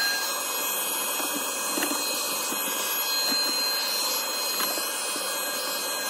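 Milwaukee M18 cordless wet and dry vacuum running steadily with a high motor whine, its brush nozzle sucking dust out of the inside of an air-conditioning cassette unit.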